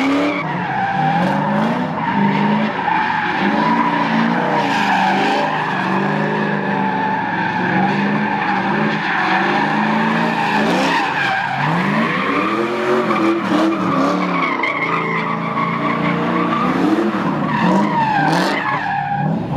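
Fourth-generation Pontiac Firebird doing donuts: the engine is held at high revs, rising and falling again and again, while the spinning rear tyres squeal steadily.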